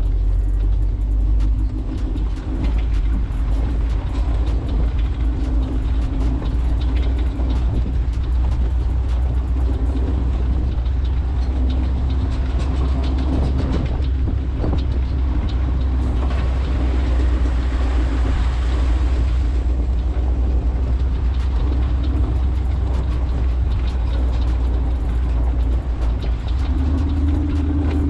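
Jeep engine running steadily while driving on an off-road trail: a constant low drone with the noise of the ride over it.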